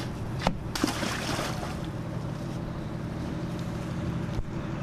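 A 4x4's engine running steadily in the background under wind and handling noise on the camcorder microphone, with a couple of knocks and a short rush of rustling or splashing about a second in.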